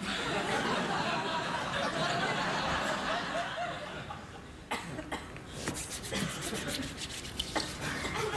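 Studio audience laughing, easing off about four seconds in, then a run of sharp claps and hand sounds to the end.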